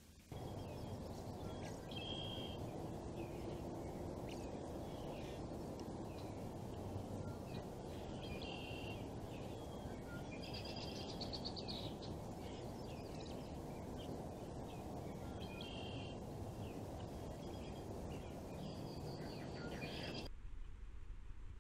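Songbirds singing in short repeated phrases, some of them quick trills, over a steady low background hiss; everything cuts off suddenly near the end.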